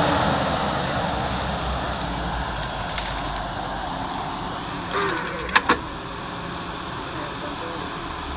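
Jeep Cherokee XJ's engine running at a steady low idle while the vehicle sits bogged in mud and water. A burst of noise at the very start fades over a couple of seconds, and a few sharp metallic clicks come about five seconds in.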